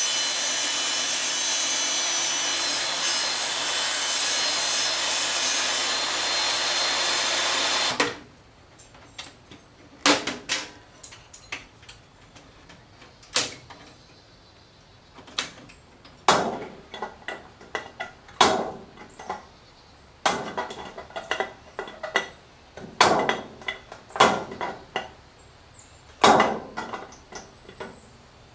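A power tool cutting sheet metal, running steadily at a constant level, cuts off suddenly about eight seconds in. Irregular sharp knocks and taps follow, one every second or so.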